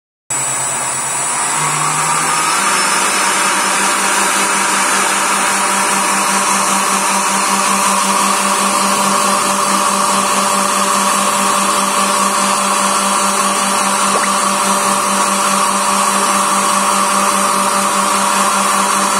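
Electric ducted fan driven by a brushless motor, spinning up and running at high speed: a loud whine over a rush of air. It starts suddenly, climbs in pitch in steps over the first two or three seconds, then holds steady.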